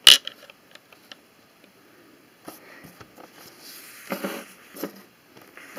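Lego bricks and the launcher being handled by hand: a sharp plastic click right at the start, then scattered small clicks and a few short soft rustling noises.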